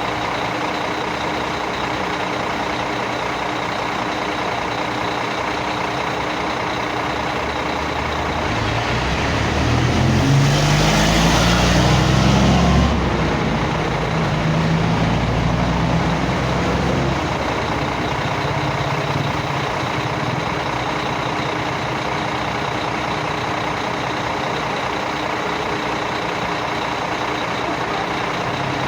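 Heavy vehicle engine running steadily. About nine seconds in it grows louder, with a rising engine note and a rush of noise, loudest around eleven to thirteen seconds, then settles back by about seventeen seconds.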